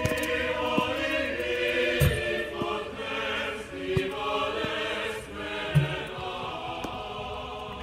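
Choral music with chanting voices. A few sharp thuds stand out over it, the strongest about two seconds in and again near six seconds: a basketball bouncing on the court.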